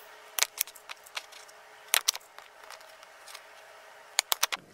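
Plastic two-hole punch being slid along and pressed through a clear plastic sheet: a string of sharp clicks and snaps, the loudest about two seconds in, with a quick cluster of clicks near the end.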